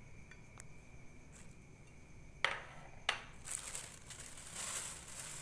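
Two sharp clinks of a small glass bowl knocking on a ceramic tiled floor, about half a second apart, followed by rustling from about three and a half seconds in.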